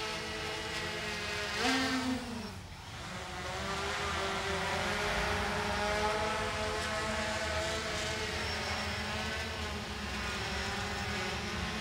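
Yuneec Typhoon H hexacopter's rotors whirring in flight, the pitch of the hum shifting as the drone climbs and then descends. There is a brief dip in the sound between two and three seconds in, then a steadier, slightly louder hum.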